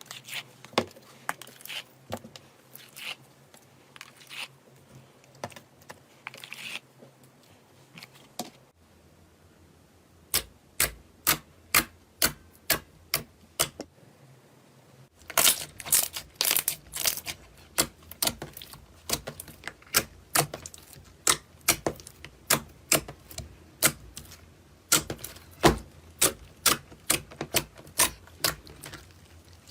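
Slime being pressed and squeezed by hand, giving a run of sharp clicking pops, a few each second. The clicks change in loudness and character about a third and about halfway through, growing louder and denser after the halfway change.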